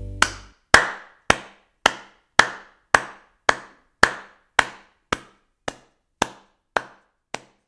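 A steady series of sharp knocks or claps, just under two a second, about fourteen in all, growing fainter in the second half. The tail of background music cuts off right at the start.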